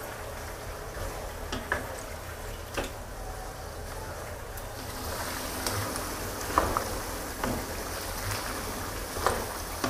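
Pork belly chunks frying gently in oil in a nonstick wok, the oil bubbling and sizzling, while a wooden spatula stirs them and knocks against the pan now and then with short clicks. The sizzle grows louder and brighter about halfway through.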